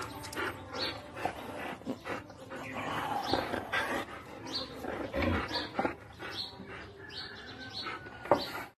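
A group of Siberian huskies calling: many short high yips and whines follow one another and overlap, with a louder one near the end.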